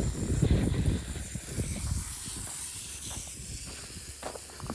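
Wind buffeting the microphone as a low, uneven rumble, easing after about two seconds into a faint hiss with a few light clicks.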